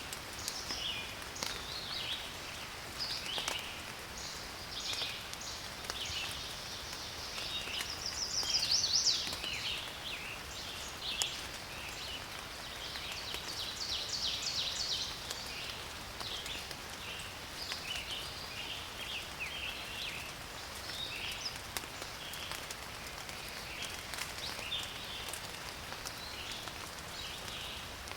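Rain falling steadily, with many short high chirping calls from wildlife over it, thickest about eight to ten seconds in.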